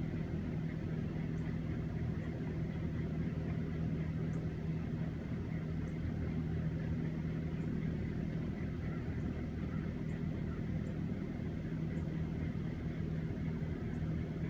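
Large poultry-house exhaust fans running: a steady drone with a constant low hum.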